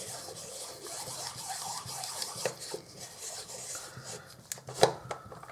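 Slotted spanner wrench unscrewing the threaded front element group of a Canon FD 55mm f/1.2 lens: a steady scratchy rubbing of metal threads turning, with small clicks and one sharp click near the end.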